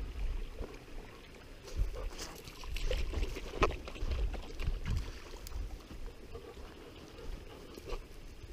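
Wind buffeting the microphone of a body-worn action camera as the wearer moves, with irregular rustles and clicks and one sharper knock about three and a half seconds in.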